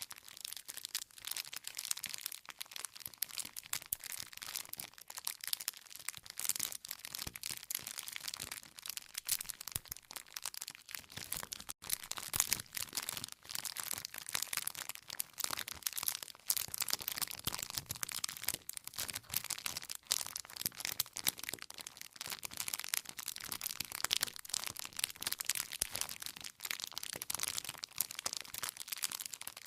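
Wood campfire burning with constant dense crackling and frequent small pops as the logs burn.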